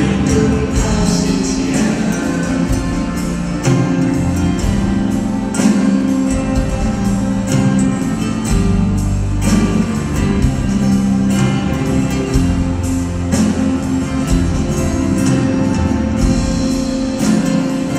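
Live performance of a Taiwanese Hokkien folk ballad: a man singing to the accompaniment of two acoustic guitars.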